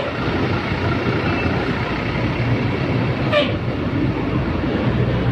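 A large tour bus running by with a steady low rumble of engine and road noise, and a short high sweep about three and a half seconds in.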